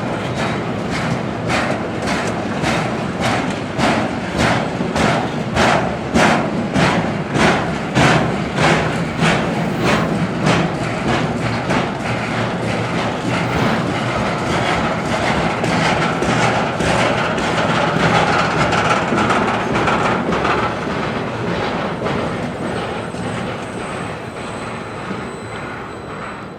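Diesel-hauled freight train rolling past, its wheels clicking over rail joints at about two clicks a second, giving way in the second half to a steady rolling hum that fades towards the end.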